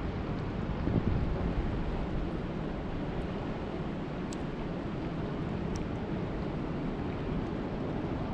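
Steady rushing of lake water, with wind buffeting the microphone and swelling about a second in; two faint ticks in the middle.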